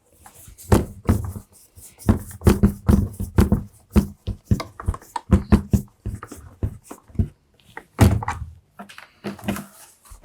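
Irregular knocks and clunks of the plastic vacuum housing being handled and fitted back together.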